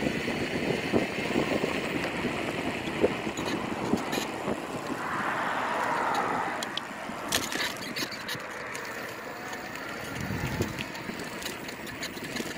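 Steady rush of wind and road noise from a bike riding along a paved street, with scattered clicks and rattles.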